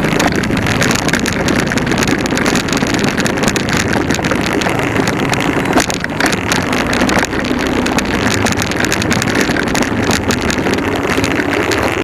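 Motorcycle running steadily on the move, with wind buffeting the microphone.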